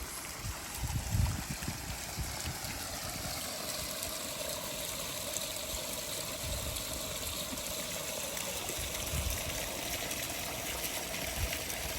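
Small floating solar fountain spraying on its low setting, water trickling and splashing steadily back into a pond. A few low bumps sound in the first couple of seconds.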